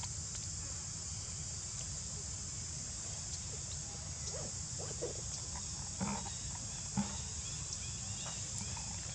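Steady, high-pitched insect chorus, shrill and unbroken, over a low rumble. A few brief soft sounds come about four to seven seconds in, the loudest two about a second apart.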